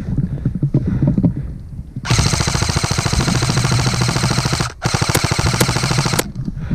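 Airsoft rifle firing on full auto in two long bursts: a fast, even rattle starting about two seconds in, a brief pause, then a second burst cutting off shortly before the end. Before it come low knocks and rustling of movement.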